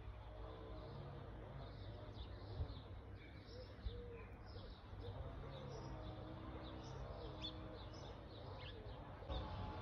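Spring village ambience: many small birds chirping and twittering, with lower calls among them and a steady low hum underneath.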